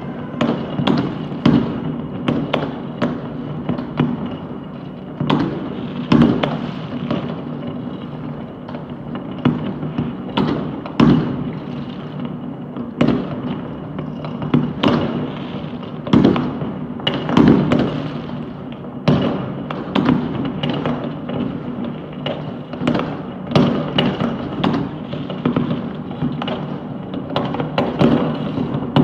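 Many fireworks going off across a city at once: a dense, unbroken barrage of overlapping bangs and pops, near and far, with a louder bang every second or two.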